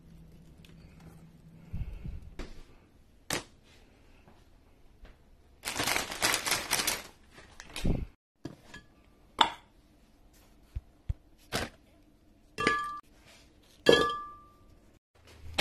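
Kitchen handling sounds: scattered knocks and thunks, a stretch of plastic snack-wrapper crinkling about six seconds in, and a few ringing clinks of a glass blender jar being struck near the end.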